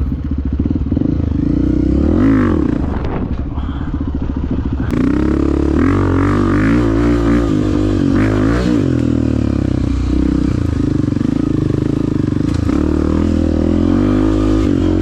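Dirt bike engines running and revving, the pitch rising and falling again and again as the throttle is worked.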